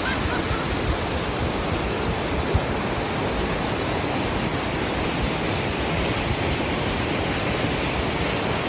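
Mountain waterfall rushing down a rocky, mossy cascade close by: a steady, unbroken hiss and rush of falling water.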